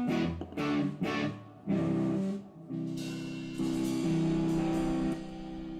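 Guitar strumming a few short chords, then two longer chords that are left ringing and slowly die away near the end.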